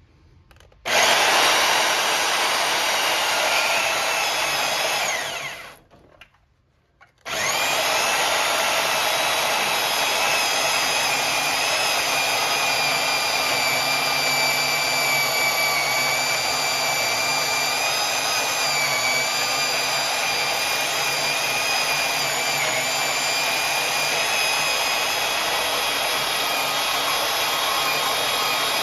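High-speed power cutting tool, likely a cutoff wheel, running with a steady high whine as it cuts through a steel truck frame rail. About five seconds in it winds down with a falling pitch and stops briefly, then starts again and keeps cutting.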